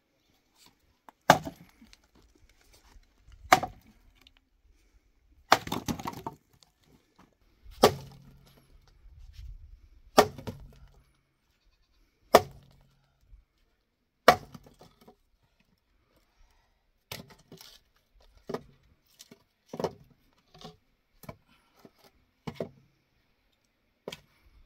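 Dry wooden branches being broken up for firewood: a run of sharp, loud cracks about every two seconds, some with a splintering crackle. After that come quicker, quieter knocks and clatter as broken pieces are handled.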